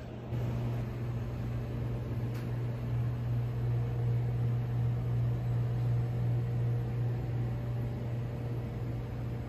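Steady low mechanical hum with a faint airy hiss, stepping up in level about a third of a second in and then holding steady.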